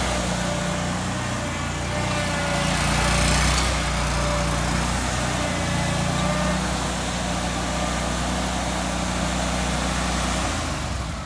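An engine running steadily, with a faint thin whine over it, easing off slightly near the end.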